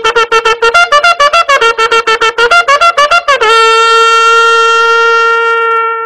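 A horn-like wind instrument sound effect: a fast run of short tongued notes, about eight a second, mostly on one pitch with a few higher notes, then one long held note for the last two and a half seconds.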